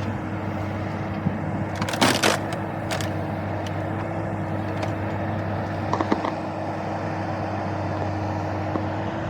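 Small diesel engine of compact machinery running steadily, with a few sharp clanks about two seconds in, again near three seconds and near six seconds.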